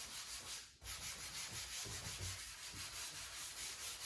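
Gritty, scratchy rubbing across car paint in long back-and-forth strokes, with a short break about a second in. The roughness comes from overspray contamination bonded to the clear coat.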